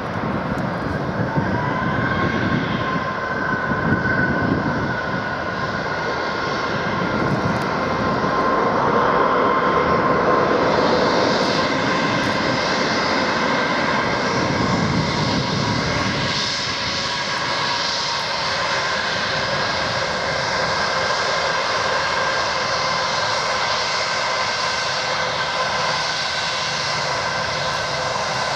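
Boeing 787 landing: a low rumble of touchdown and rollout under jet engines whining, the whine rising about a second and a half in. Partway through, the rumble fades and a steady high whine of an Airbus A320-family airliner's engines at taxi idle takes over.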